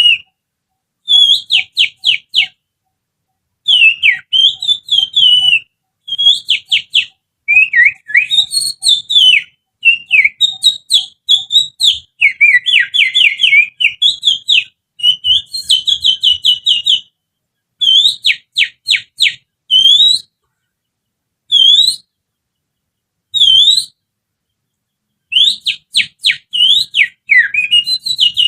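Bird-song imitation whistled through the little finger: high, shrill phrases of quick slurred notes and rapid repeated chirps, in bursts of one to two seconds with short pauses between. It is a lure whistle meant to provoke a caged oriental magpie-robin into singing.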